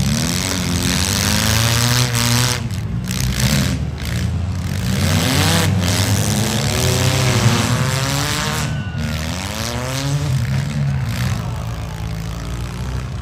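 Engines of several demolition-derby compact cars revving at once, their pitches rising and falling as the cars push and ram one another.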